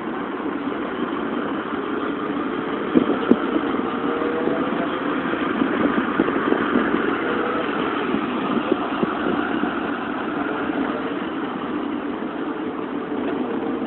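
Motorino XPD electric scooter under way: steady road and wind noise with a faint whine that slowly rises and falls in pitch. Scattered knocks and rattles come through, the loudest about three seconds in.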